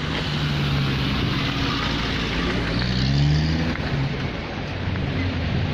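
Car engines running close by in street traffic, with one engine revving up as a car pulls away about three seconds in.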